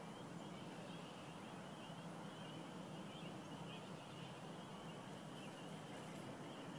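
Faint, steady chorus of distant frogs calling high and fast, over a low steady hum.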